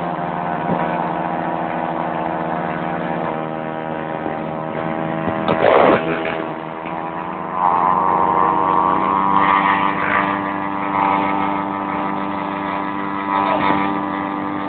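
Motorcycle engine held at high, steady revs during a burnout, with a brief louder surge about six seconds in. A higher steady note joins about a second and a half later and holds.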